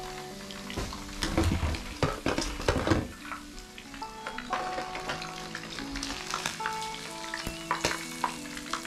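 Coated menpachi fish sizzling and crackling as they deep-fry in hot peanut oil in a pan, with a cluster of louder crackles and knocks about one to three seconds in, over light background music.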